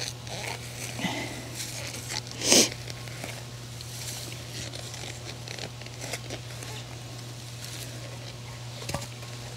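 Metal hand trowel digging and scraping in garden soil, with scattered crunches and rustles and one louder scrape about two and a half seconds in.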